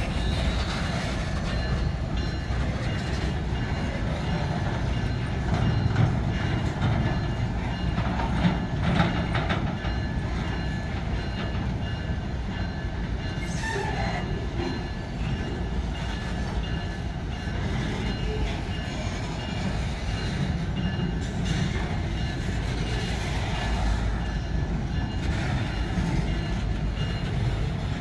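Bauxite freight train's open gondola wagons rolling past close by: a steady rumble of steel wheels on the rails with scattered clatter and knocks from the wheels and couplings.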